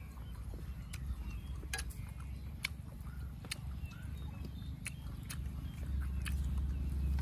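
A knife slicing through a boiled pig stomach, giving sharp, irregular clicks about once or twice a second. Under it a low rumble that grows louder about six seconds in.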